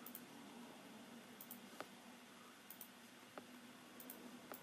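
Faint, sparse clicks of someone clicking through web pages on a laptop, about one a second, over a faint low hum.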